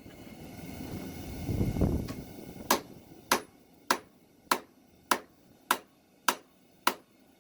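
Hammer striking hot steel on an anvil: eight even blows about 0.6 s apart, each with a short metallic ring. Before the blows, for about the first two and a half seconds, there is a low rushing noise.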